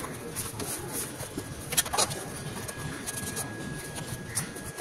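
Cloth rag rubbing and rustling as it wipes diesel-loosened grease and grime off a car's door-hinge pillar, with a couple of sharp clicks about two seconds in.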